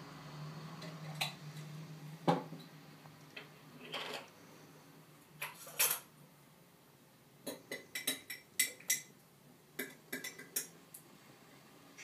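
Scattered sharp clicks and light clinks, with a quick run of them about two-thirds of the way through. A low steady hum ends about two seconds in.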